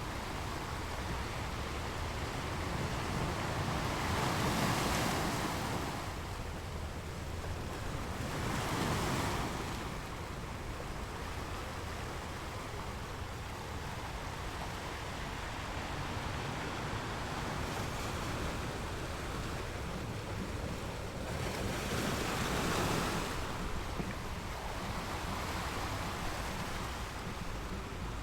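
Sea waves washing ashore: a steady rush of surf that swells louder a few times as bigger waves break.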